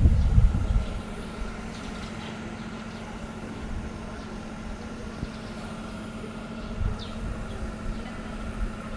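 A steady mechanical hum with a low tone and a fainter higher tone, after a brief loud low rumble in the first second.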